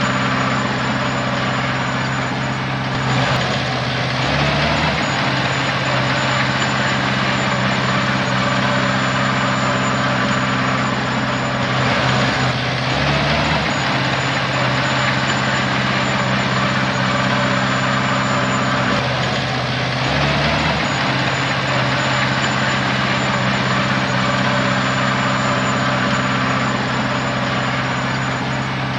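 Heavy diesel engine of earthmoving machinery running steadily, its note briefly shifting about four, thirteen and twenty seconds in.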